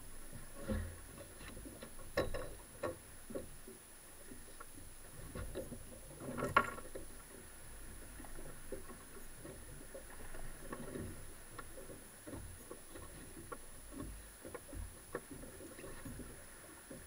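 Small waves lapping and slapping against a fiberglass boat hull, with scattered knocks and clatter on the deck as a fish is handled in a landing net; the loudest knock comes about six and a half seconds in.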